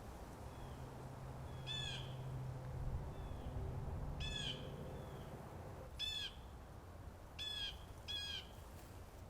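A bird giving short calls, five in all, the last two close together.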